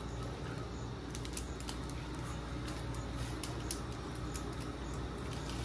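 Steady low hum of lit drink vending machines running their refrigeration, with scattered light clicks and ticks throughout.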